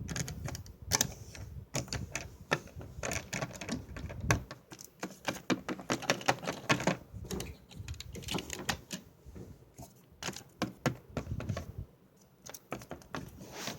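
Small plastic toy figures and a plastic playset being handled: a long run of quick, irregular clicks and taps of plastic on plastic, with a low handling rumble in the first few seconds.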